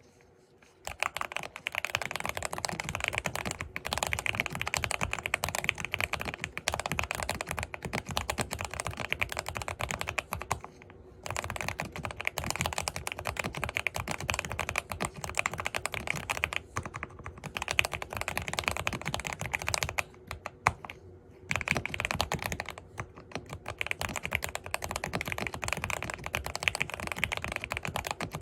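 Continuous fast typing on a Zuoya GMK67 mechanical keyboard with Kailh Ice Cream Pink switches, a dense run of key clacks. It starts about a second in and breaks off briefly a few times.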